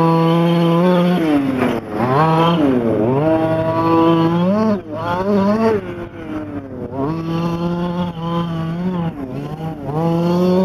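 Losi 5ive T's 23cc two-stroke gas engine revving up and down as the 1/5-scale RC truck is driven, its pitch climbing under throttle and dropping each time it backs off, several times over.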